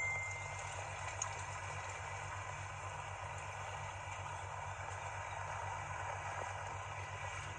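Fast-flowing floodwater making a steady rushing wash, with a low steady hum underneath.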